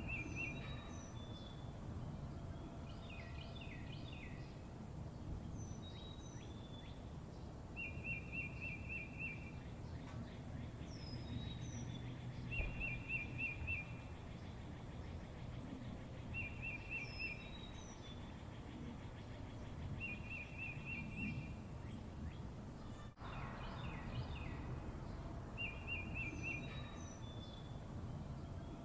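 Small birds singing: a short, rapid trilled phrase repeated every few seconds, mixed with scattered higher chirps, over a steady low background rumble.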